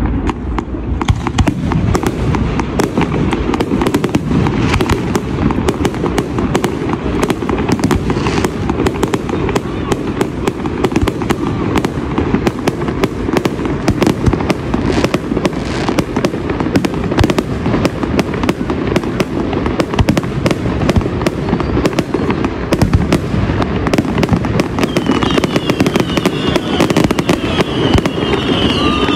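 Fireworks display: a dense, unbroken barrage of bangs and crackles over a steady low rumble.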